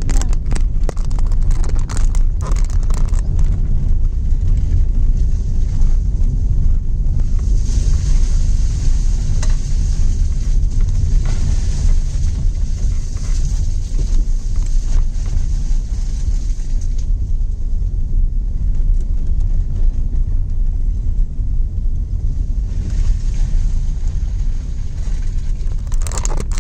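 Cabin noise of a Tata Tiago hatchback driving over a rough, wet dirt track: a steady low rumble of engine and road noise. There are a few knocks in the first few seconds, and stretches of higher hiss come and go.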